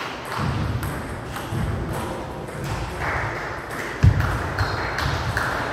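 Table tennis rally: the celluloid ball clicking off rackets and the table about once a second, with a heavier thud about four seconds in.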